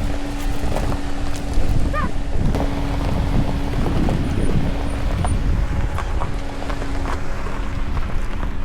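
Mazda CX-90 SUV creeping slowly over rough trail ground, its engine holding a steady low hum under scattered clicks and knocks from the tyres over stones. Wind rumbles on the microphone.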